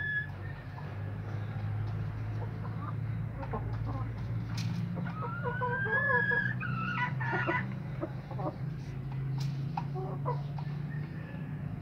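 A rooster crowing once about five seconds in: a rising call that breaks off into short choppy notes. Softer chicken clucks come around it, over a steady low hum.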